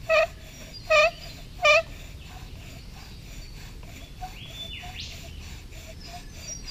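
Bow drill squeaking as the spindle spins under the bow's strokes: three loud, short, wavering squeaks in the first two seconds, then only faint squeaks under a steady hiss.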